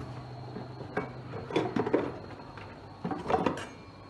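Metal clattering and knocking against an aluminium cooking pot as the wire rack holding the baked bread is handled for lifting out, in two bunches of knocks about 1.5 and 3 seconds in. A low hum fades about a second in.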